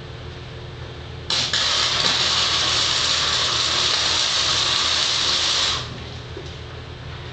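Self-shielded flux-core arc welding with a 90-amp wire-feed welder, joining a light-gauge steel stud to a steel joist overhead: the arc starts abruptly about a second in, crackles and hisses steadily for about four and a half seconds, then stops. A low steady hum runs underneath.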